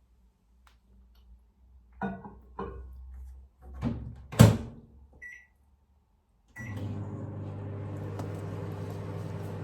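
Microwave oven being loaded and started: a few clunks and one loud thump, a short beep, then another beep and a steady electrical hum as it starts running, about two-thirds of the way in.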